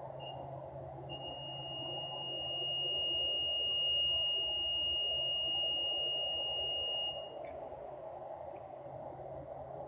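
Steady industrial machinery noise: a constant droning haze over a low hum. A single high steady whine or tone joins about a second in, holds for about six seconds while the noise swells, and cuts off suddenly, followed by a faint click.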